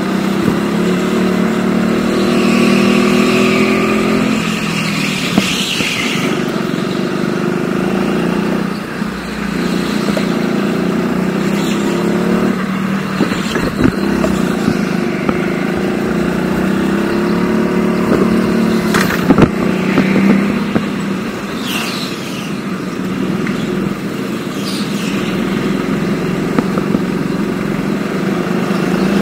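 Go-kart engine running on track, its pitch rising and falling as the throttle comes on and off, with a few sharp knocks along the way.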